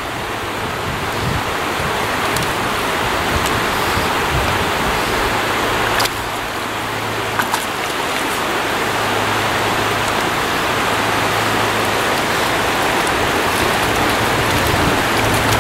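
Shallow freestone trout stream running steadily, with a single sharp click about six seconds in.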